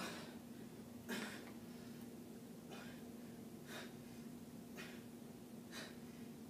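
A woman's short exhaled breaths, about one a second, in time with her dumbbell shoulder-press reps, over a steady low hum.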